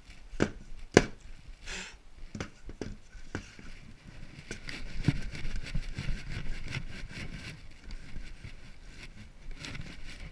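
A few sharp knocks of wood being handled, the loudest about a second in, then several seconds of rough, scratchy sanding on the log.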